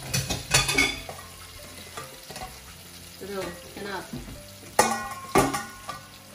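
Tomato sauce with shrimp frying in a nonstick pan and being stirred with a spatula, with a low sizzle and sharp utensil clinks, loudest near the start and twice about five seconds in.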